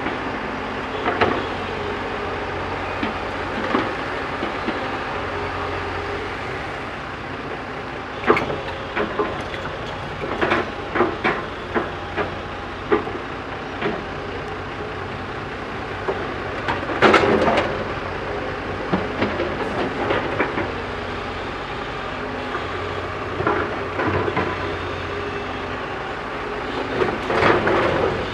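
JCB backhoe loader's diesel engine running steadily, broken by bursts of sharp metallic clanks and knocks as it works the soil.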